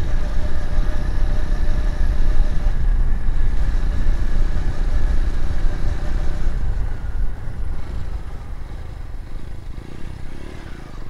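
Motorcycle engine running under way, heard from the rider's handlebar-mounted phone with heavy wind rumble on the microphone. It gets somewhat quieter from about eight seconds in as the bike eases off.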